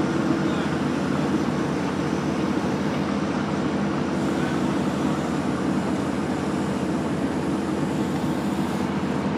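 A machine or engine running steadily: a constant low hum with an even noise over it.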